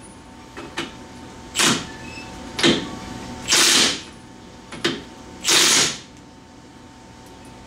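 Cordless impact wrench hammering on a UTV's wheel hub nut in about six short bursts, stopping between them to line the nut up with the cotter pin hole.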